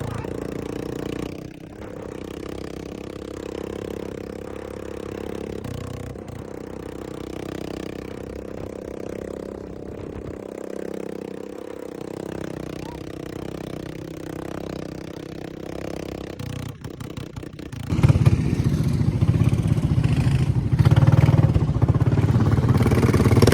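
ATV engine running steadily at low speed, then much louder about three quarters of the way in as it picks up speed.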